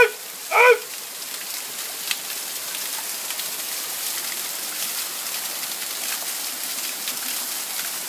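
Small waterfall splashing steadily onto rock, an even rushing hiss. In the first second a man's voice calls out two short chanted syllables.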